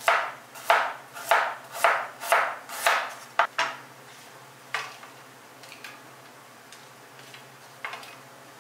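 Chef's knife chopping fresh ginger on a wooden cutting board: about eight quick chops roughly half a second apart, followed by a few scattered, lighter knocks as the cut pieces are gathered and moved.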